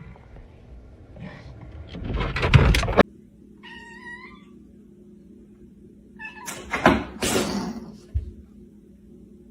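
A cat meowing once, a short wavering call, between two louder bursts of noise, the first cut off abruptly, with a low thump near the end.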